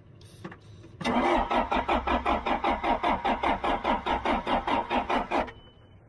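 John Deere 310 backhoe's diesel engine cranking on the starter, an even chugging of about eight strokes a second for four and a half seconds, then stopping suddenly. It turns over but does not fire: Liquid Wrench sprayed in as starting fluid is doing nothing.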